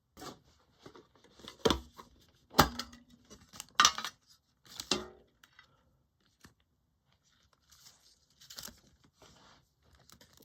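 Crinkling and rustling of a foil booster-pack wrapper and trading cards being handled, with four sharp crackles in the first half and fainter rustling near the end.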